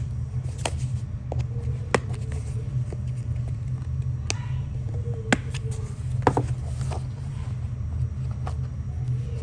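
Small cardboard gift box being handled and opened, giving scattered sharp clicks and taps, over a steady low rumble.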